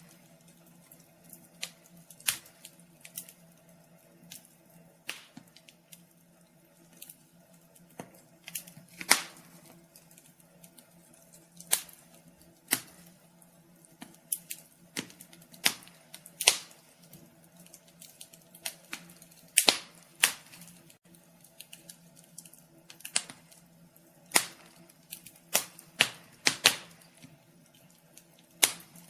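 Wood fire crackling: irregular sharp pops and snaps, sometimes singly and sometimes in quick clusters, over a faint steady hum.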